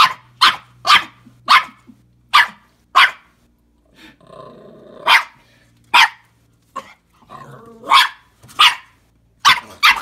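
Puppy barking repeatedly in short, sharp barks, about two a second, with a short pause about three and a half seconds in and a quieter drawn-out sound before the barking picks up again.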